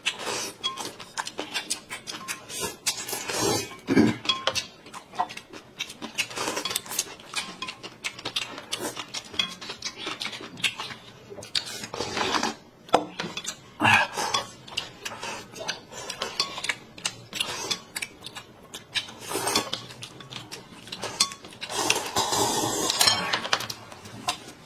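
Kitchen cooking sounds: metal utensils knocking and clinking against pots and pans in an irregular run of strikes, with a steady rush of noise for about a second near the end.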